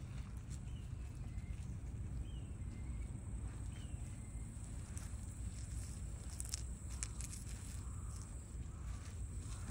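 Quiet outdoor ambience: a steady high insect buzz over a low rumble, with a few faint chirps in the first few seconds. A cluster of small clicks around the middle sounds like gravel shifting as a cat rolls on it.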